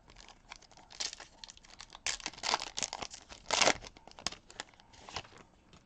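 Foil wrapper of a Bowman baseball card pack being torn open and crinkled by hand: a run of irregular crackling rustles, loudest a little after the middle.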